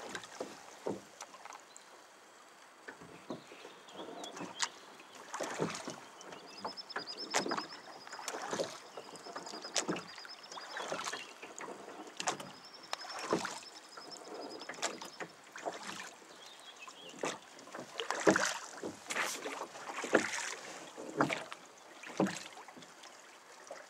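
Water splashing and slapping against the hull of a small boat in irregular strokes. The outboard motor is not running.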